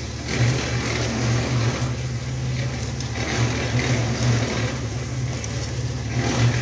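A steady low hum like a motor running, with a rough haze of noise over it that swells and fades.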